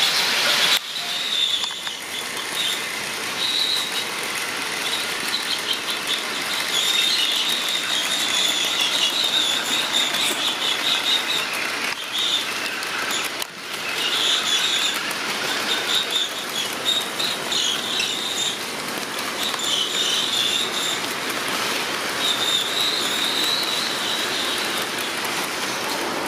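HO scale model freight trains rolling along the track: a steady rush of many small metal wheels on rail, with a high wheel squeal that comes and goes.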